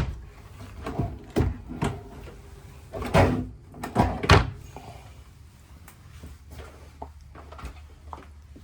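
Storage drawers in a camper being pulled open and pushed shut: a series of knocks and thuds, the loudest about three and four seconds in, with lighter clicks after.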